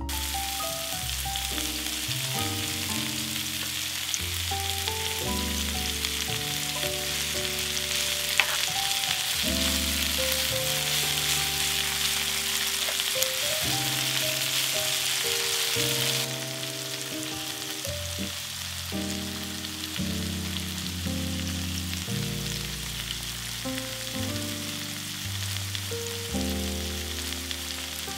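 Sliced onion and red bell pepper sizzling in oil in a frying pan, being stirred with a spatula; the sizzle drops noticeably in level a little over halfway through. Background music with separate melodic notes runs underneath.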